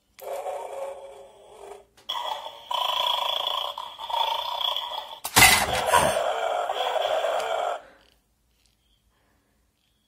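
Battery-powered 'angry dog' bone-snatching game toy playing electronic dog sounds through its small speaker in short stretches, then a sharp plastic clack about five seconds in as the spring-loaded bulldog lunges forward, its sound going on louder until it cuts off suddenly about eight seconds in.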